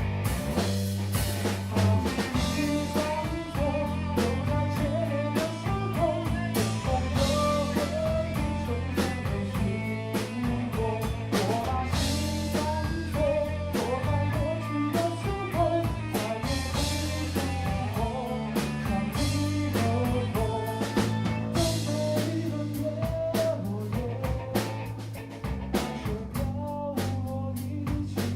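Live rock band playing: drum kit, bass and guitar.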